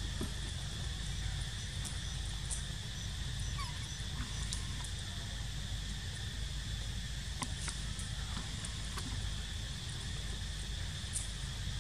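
A steady, high-pitched insect drone with a constant low rumble beneath it and a few faint scattered clicks.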